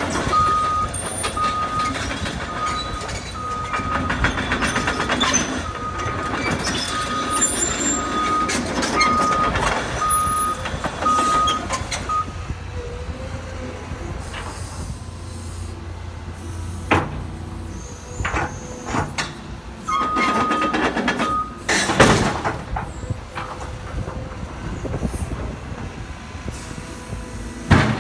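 Cat 314E L hydraulic excavator running, its diesel engine and hydraulics working as it tracks and swings. A travel alarm beeps a little more than once a second for the first twelve seconds and again briefly later. There are a few sharp clanks, the loudest about 22 seconds in.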